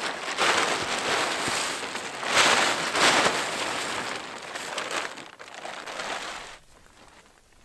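Blue plastic tarp crinkling and rustling as it is unfolded and shaken out, loudest about two and a half to three seconds in, then fading out near the end.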